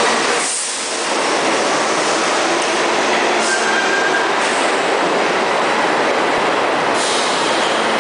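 New York City subway train pulling out of the platform and running off into the tunnel: a loud, steady rumble and rattle of wheels on rail.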